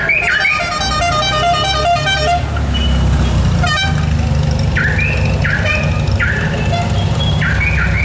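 Parade of classic Fiat 500s passing, their small air-cooled two-cylinder engines running. Car horns sound over them: a musical horn plays a short tune at the start, and falling electronic horn chirps repeat around the middle and again near the end.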